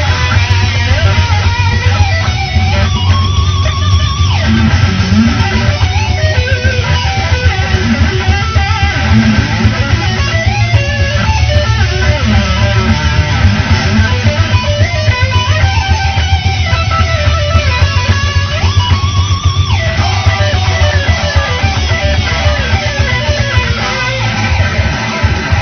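Rock band music led by strummed and electric guitars over a steady bass.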